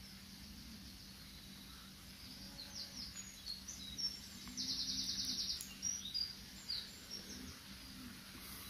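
Small woodland birds calling at dusk: scattered short, high chirps and whistles, with one fast, even trill lasting about a second midway.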